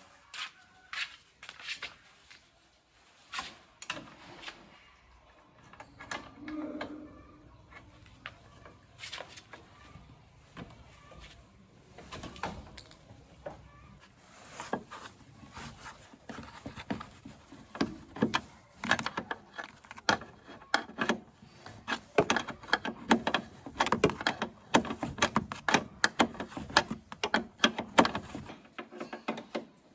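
Irregular clicks and knocks of hand work on metal car parts. They come sparsely at first, then grow busier and louder in the second half.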